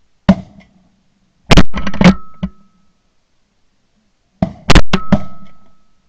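Shotgun shots, loud and sharp: a single shot just after the start, a quick string of shots about a second and a half in, and another string near the end.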